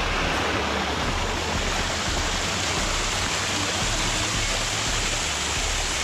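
Mountain waterfall, water falling steadily with an even, unbroken rush.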